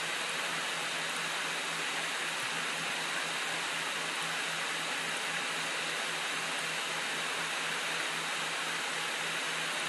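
Steady hiss with a low hum underneath, unchanging throughout, with no other sounds.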